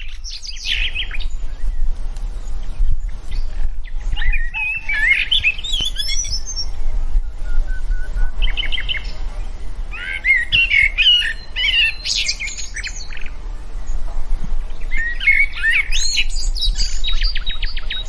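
Songbirds chirping and warbling in high, varied phrases that come every few seconds, ending in a quick trill near the end, over a steady low rumble.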